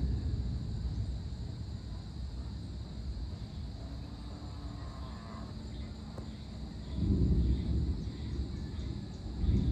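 Distant thunder rumbling low, fading away over the first couple of seconds, with another rumble about seven seconds in and a third building near the end. A steady, faint high drone of insects runs underneath.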